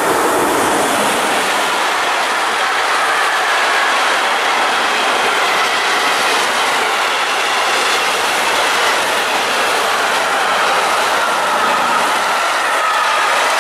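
Intermodal freight train of container and pocket wagons rolling past at speed, a steady rush of wheels on rail with a faint thin squeal running through it.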